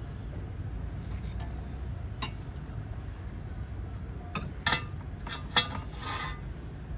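Kitchen utensils clinking and knocking against dishes and cookware, a few separate sharp clinks with a short scrape near the end, over a steady low rumble.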